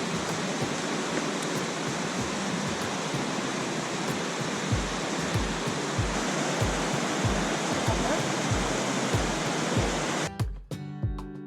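Steady rush of falling water. About halfway through, background music with a regular bass beat comes in under it. Near the end the water sound cuts off, leaving only the music.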